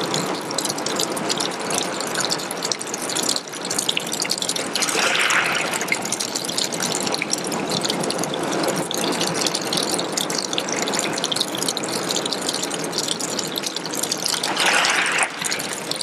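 Small waterfall trickling down a rock face and splattering onto pebbles: a steady patter of many small drips and splashes, swelling briefly louder twice.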